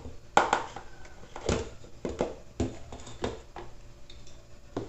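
Irregular light knocks and taps of kitchen utensils against a bowl and containers, about eight to ten short clicks while chocolate powder is added to flour.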